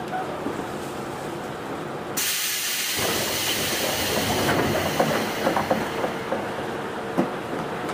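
Inside an old Sotetsu 7000 series electric train car as it comes to a stand at a station: the running rumble dies away, and about two seconds in a sudden loud compressed-air hiss breaks out and carries on, with scattered clicks and rattles after it.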